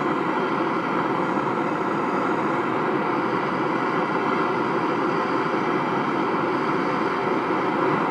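MAP gas torch burning with a steady hiss, heating a rusted cylinder-head bolt until it glows red.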